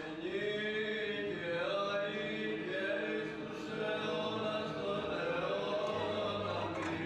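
Orthodox liturgical chant: voices singing a slow melody in long, gliding notes.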